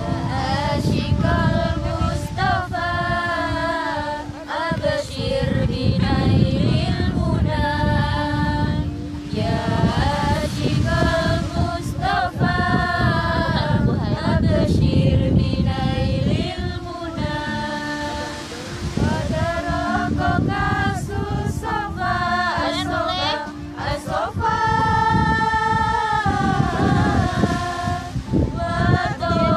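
A group of women singing sholawat, Islamic devotional songs, together, in long drawn-out phrases with short breaks between them.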